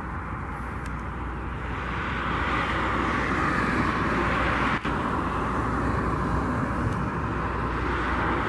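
Steady rumble of distant engine noise with no distinct tones. It swells louder about two seconds in and then holds.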